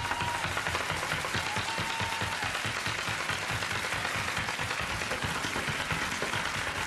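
Steady rush of flowing water inside a rock cave.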